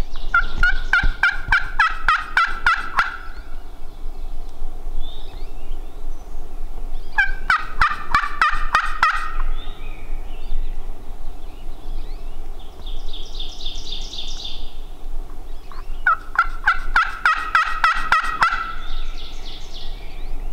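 Wild turkey gobbler gobbling three times, each a loud rapid rattling gobble of two to three seconds, about eight seconds apart. A fainter songbird trill comes between the second and third gobbles.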